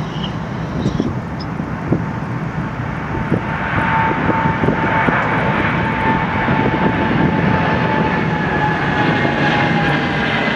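Boeing 787 jet engines and airflow heard on the flight deck during the climb just after takeoff: a steady noise, with a faint steady tone coming in about four seconds in.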